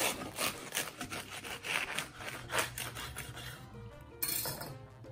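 A knife sawing back and forth through the crisp toasted crust of a panini-pressed sandwich, a series of short rasping strokes, with one last stroke about four seconds in as it cuts through.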